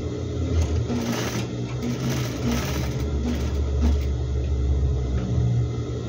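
Sewing machine running steadily, stitching a seam through strip-fabric rug material, with brief rustles of the fabric being handled.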